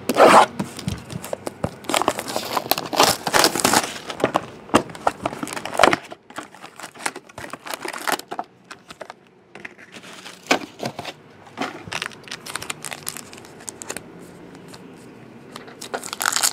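Trading-card box and pack wrappers being torn open and crinkled by hand. Irregular crinkling and tearing, busiest in the first six seconds, then sparser and quieter.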